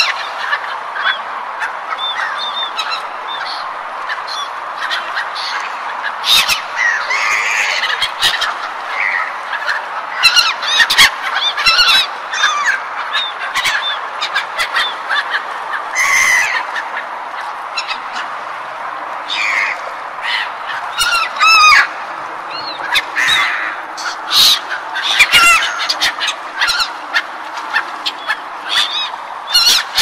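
A flock of gulls calling over and over, many short harsh calls overlapping at irregular times, over a steady rushing background noise.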